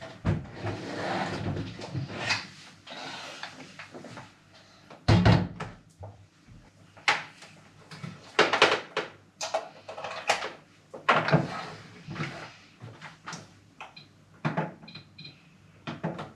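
Kitchen handling sounds: cupboard doors and drawers opening and closing and things being set down, a series of separate knocks and clunks, after a stretch of rushing noise in the first few seconds. A few short high tones sound near the end.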